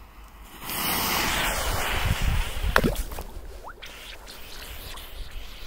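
Lit firecracker fuse hissing. It catches abruptly about a second in, stays loud for a couple of seconds, then fades.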